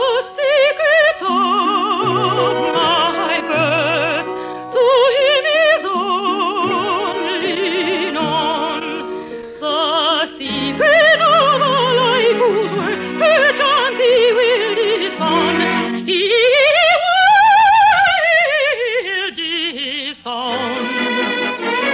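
Operatic singing over an orchestra: a high voice holds long notes and runs without clear words, with wide vibrato. Near the end it sweeps up to a high note and back down.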